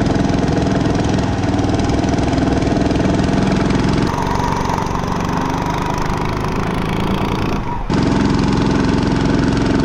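Mud Skipper 7.5 hp surface drive mud motor, a small single-cylinder engine, running steadily under way and pushing the jon boat, heard from inside the boat. The sound drops out briefly about three-quarters of the way through.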